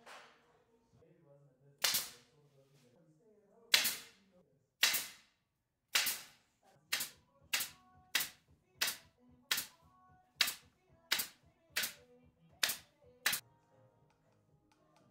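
A series of about fourteen sharp knocks, a second or more apart at first, then settling into an even beat about every two-thirds of a second, over faint background music.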